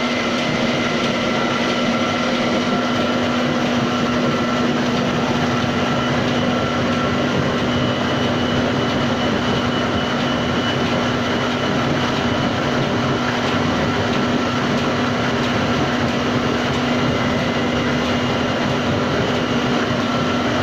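Homemade tofu-straining machine running steadily, its simple motor giving a constant hum over a continuous mechanical rumble.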